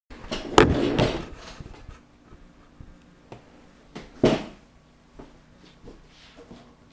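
A few knocks and thuds of handling: a loud cluster about half a second in and another strong knock just after four seconds, with fainter clicks between.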